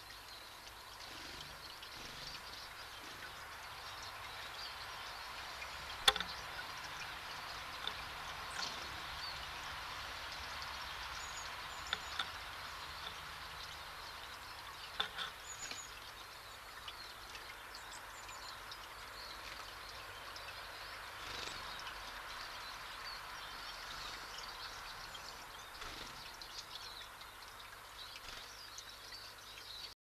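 Outdoor forest ambience: a steady hiss of background noise with faint, high, short chirps from small birds now and then, and a few sharp clicks, the loudest about six seconds in.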